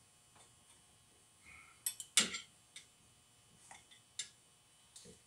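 Scattered clicks and metal clinks as a screwdriver works the edge of a rubber axle boot over a VW swing axle tube clamped in a vise, with a quick cluster of the loudest knocks just after two seconds in.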